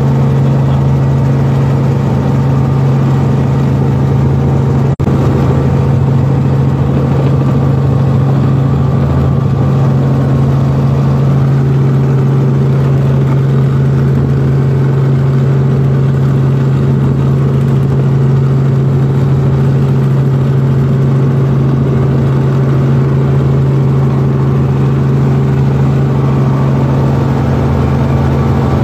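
Helicopter engine and rotor running steadily, heard from inside the cabin as a loud, even drone with a strong low hum. There is a brief dropout about five seconds in.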